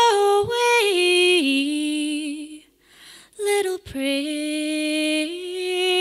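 A woman singing slow, long-held notes that step down in pitch, with a short pause for breath about halfway through.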